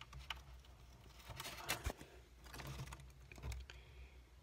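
A scatter of faint clicks and short rustles from a hand moving through plastic terrarium plants.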